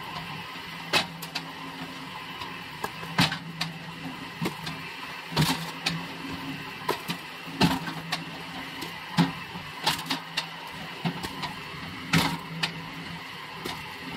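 Homemade crank-driven firewood splitter, driven by an electric motor through a gearbox, running with a steady hum while its ram splits logs with a sharp crack or knock about every two seconds.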